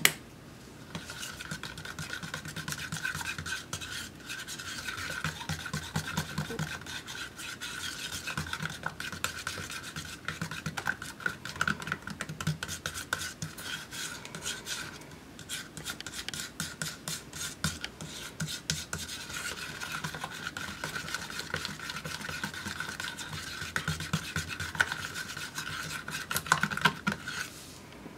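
A metal palette knife stirring and scraping thick paint around the inside of a plastic cup: a continuous rapid scratching, with short pauses about four and fifteen seconds in. It stops just before the end.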